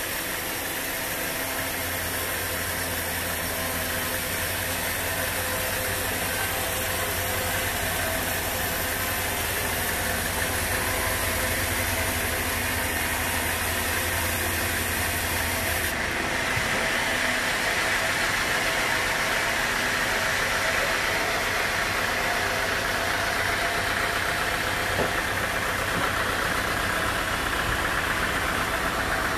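Band sawmill running steadily as its blade cuts through a teak log. The machine noise changes abruptly about halfway through.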